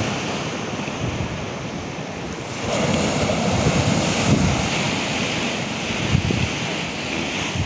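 Sea surf breaking and washing below, a steady rushing, with wind buffeting the microphone in low rumbles. The surf swells louder a little under three seconds in.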